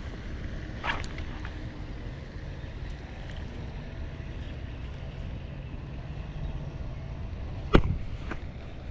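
Wind buffeting the microphone as a steady low rumble, with a couple of light clicks about a second in and one sharp knock near the end.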